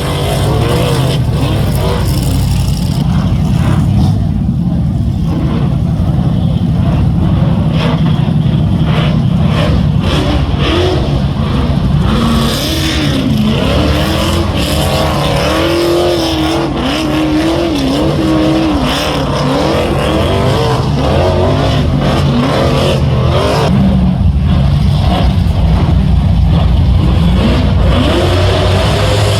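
Rock bouncer race buggies' big engines revving hard, the pitch rising and falling again and again as they climb.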